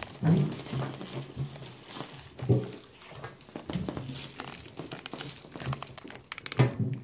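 Paper crinkling on a chiropractic table as a patient shifts on it, with three louder thumps spread through.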